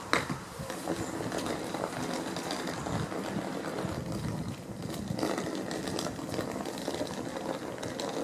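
Yellow self-propelled on-track maintenance machine running along the line away from the listener: a steady diesel-driven running noise with a few sharp clicks near the start.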